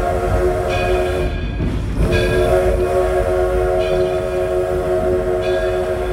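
Steam locomotive's whistle blowing a chord of several notes. One blast breaks off about a second in, and a longer blast starts about two seconds in. Under it is the low rumble of the train running.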